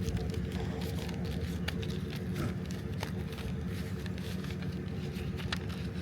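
Scattered light clicks and crackles of parcel packaging being handled, over a steady low mechanical drone.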